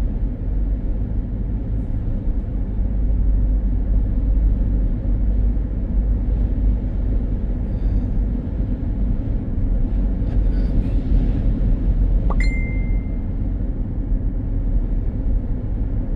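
Steady low road and wind rumble heard inside a car driving in strong wind through a snowstorm, with a single short high beep about three quarters of the way through.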